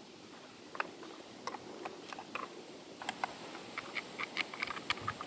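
A series of light, irregular clicks and scratches, sparse at first and coming more often from about three seconds in.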